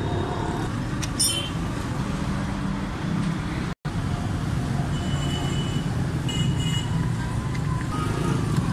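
Steady low rumble of street traffic, with a few short clicks and scrapes from a screwdriver prying at the plastic base of a motorcycle seat.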